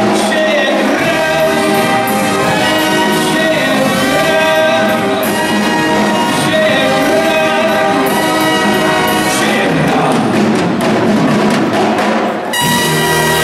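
Live big band playing: trumpets, trombones and saxophones over guitar, keyboard and drums. Near the end the band briefly drops out, then comes back in on a loud held chord.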